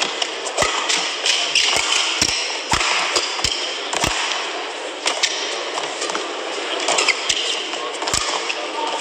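Badminton rally: irregular sharp racket hits on the shuttlecock and players' footfalls on the court, over a steady background noise of the arena crowd.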